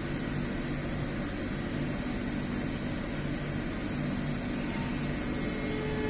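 Electric commuter trains standing at a platform, their onboard equipment giving a steady hum. Near the end, a rising whine begins as one train's electric traction motors start it moving.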